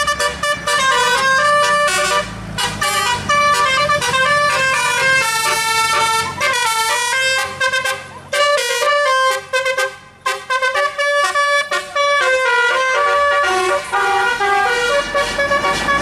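Tour bus's telolet musical air horn playing a long tune of short, stepped notes, with a couple of brief breaks near the middle.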